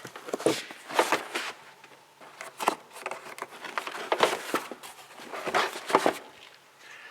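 Handling noise: a string of about eight short knocks and rustles, irregularly spaced.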